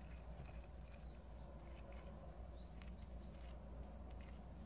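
Prairie dog chewing fresh grass blades held in its paws: a quick, irregular run of small crisp crunches.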